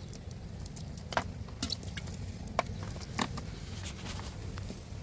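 Cast net being handled to pick out small fish: its lead sinkers and mesh give irregular small clicks and clinks, about a dozen, over a steady low rumble.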